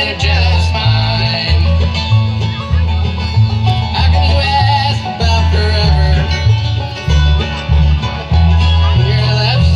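Bluegrass band playing, with banjo and guitar picking over a bass line that steps between notes on the beat.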